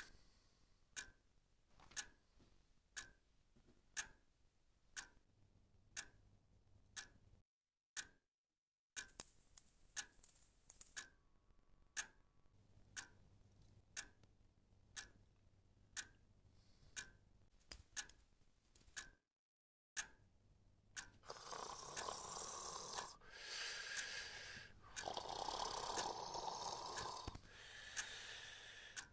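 A clock ticking steadily, about once a second. About 21 seconds in, slow, heavy breaths in long swells of about two seconds each join the ticking.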